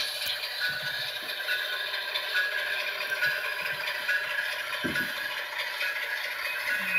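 Model freight train running on sectional track: a steady mechanical rattle and clatter from the locomotive's motor and the cars' wheels, with a couple of faint low knocks.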